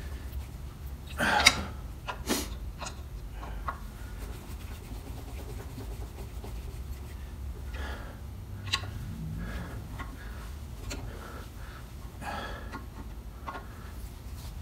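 Hand work on an outboard lower unit: a few sharp clicks of metal parts and tools and brief rustling noises, the loudest about a second in, over a steady low hum.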